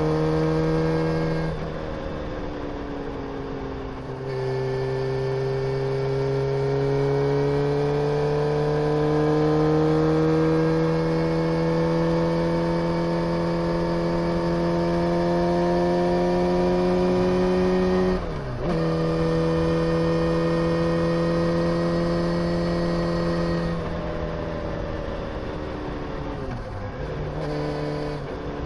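Honda CBR motorcycle engine under way, its pitch climbing slowly as it pulls through the revs. It drops sharply at gear changes, about two and four seconds in, at about two-thirds of the way through, and twice near the end.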